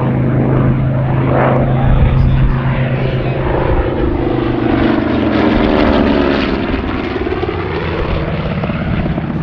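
Grumman TBM-3 Avenger's Wright R-2600 Cyclone twin-row radial engine and propeller droning steadily as the aircraft banks past overhead, the pitch sliding down in the second half as it goes by.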